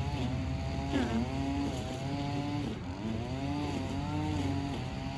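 A small engine running steadily, its pitch dipping and rising every second or two.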